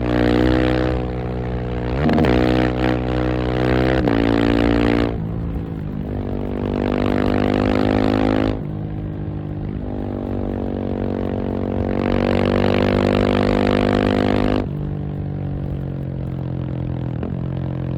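KTM 690 SMC R's single-cylinder engine under way, pulling through several bursts of acceleration with the pitch climbing. Each burst ends with the throttle closing and the engine dropping back to a lower, steadier note.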